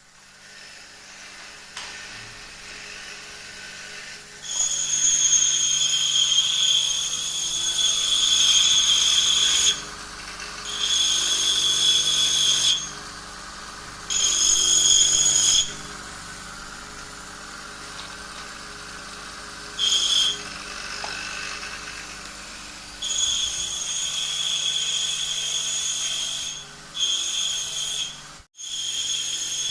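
Small high-speed power tool whining in repeated bursts, switched on for one to five seconds at a time, with a steady high pitch.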